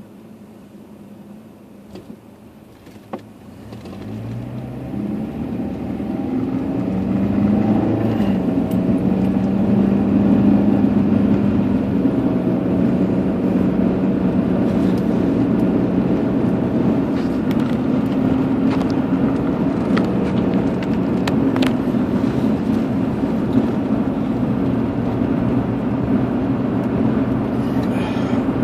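A car pulling away from a stop and accelerating, heard from inside its cabin. The engine note rises over several seconds, then settles into steady engine and tyre noise at cruising speed.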